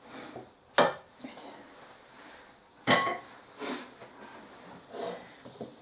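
Utensils knocking sharply against a mixing bowl twice, about a second in and again about three seconds in, the second with a short ring, between softer scrapes of a spatula working thick soap batter around the bowl.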